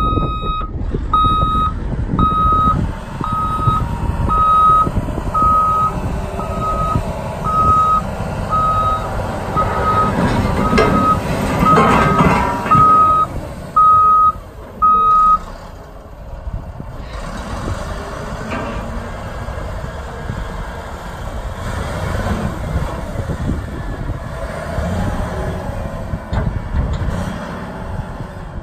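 Volvo A40E articulated dump truck's backup alarm beeping about three times every two seconds over its running diesel engine as it reverses. The engine swells while the dump body is raised, and the beeping stops about halfway through, leaving the engine running as the truck moves off.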